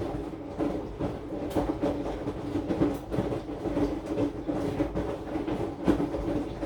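AQUA AQW-DX12M front-loading drum washing machine running with its drum turning, its motor giving a steady hum under irregular knocks and rattles. The phone resting on top of the machine picks up the body vibration, and the sound swells right at the start.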